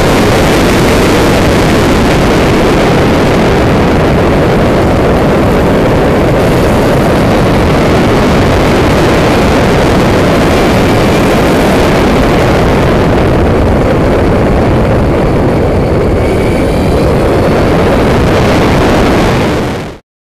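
Steady, loud wind rush on the onboard camera of a Lightning electric racing motorcycle at speed, with a faint high whine that comes and goes in the second half. It cuts off abruptly near the end.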